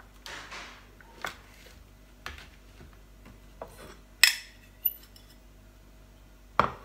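A metal fork tapping and scraping against a plastic cake tray and a plate as a slice of cake is lifted out and served: scattered light knocks, with one sharp ringing clink about four seconds in.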